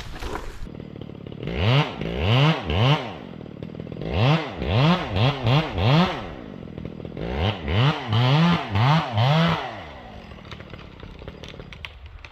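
Echo 670 two-stroke chainsaw having its throttle blipped, over and over: about a dozen quick rev-ups and drops in three bursts, then it settles back to idle.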